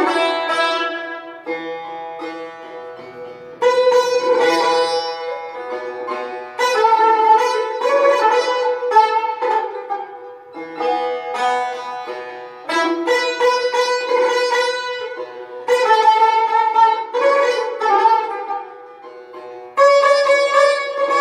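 Solo Persian tar, a skin-topped long-necked lute plucked with a plectrum, playing in the Persian mode Bayat-e Tork. The melody comes in phrases, each opening with a sudden loud stroke and fading over a few seconds, about five times.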